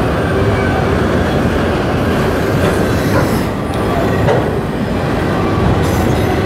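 Freight train of enclosed autorack cars rolling past close by: a loud, steady rumble of steel wheels on rail, with thin squealing tones from the wheels now and then.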